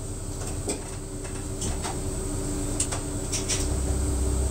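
Route bus's diesel engine idling with a steady low rumble and hum heard from inside the cabin, the rumble growing louder about three and a half seconds in. A few light clicks and rattles come from inside the bus.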